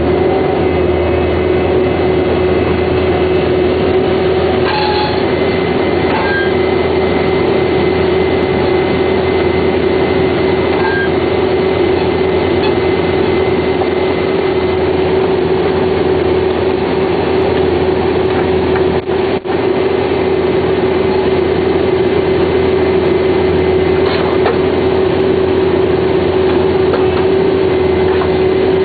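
Vermeer D24X40 Series 2 horizontal directional drill running steadily, its engine and hydraulics making a constant hum with a steady whine over it. The sound dips for a moment about two-thirds of the way through.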